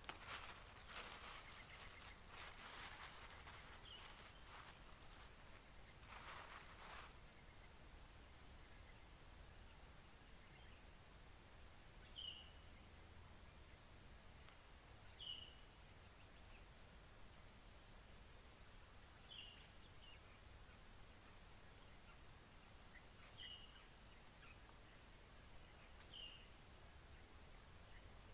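Steady high-pitched insect drone from a riverbank thicket, with short chirps every few seconds. Rustling handling noises in the first several seconds.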